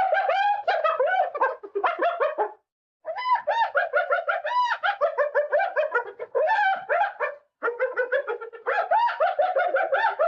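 Cartoon sound effect of bird-like twittering: fast runs of short, rising-and-falling chirps in three bursts, with two short breaks between them.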